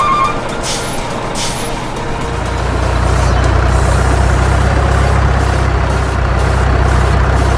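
Heavy truck sounds: a reversing beep right at the start, two short air-brake hisses about a second in, then a truck engine starting to run with a steady low rumble from about two seconds in.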